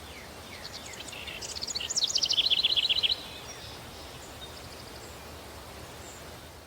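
Countryside daytime ambience from a sound-effects library: songbirds chirping over a steady breeze hiss. About two seconds in, a bird gives a quick trill of rapid, evenly repeated chirps, the loudest part, and the ambience fades out near the end.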